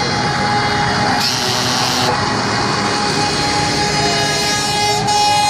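Truck air horn held in one long steady blast, with a short burst of hissing air about a second in.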